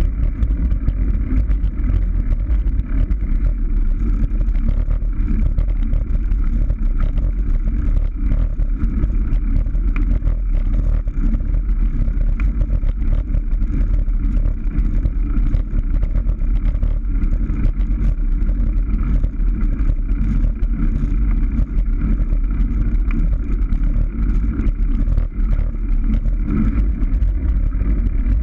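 Steady, loud wind and road rumble on the microphone of a camera mounted on a moving road bicycle.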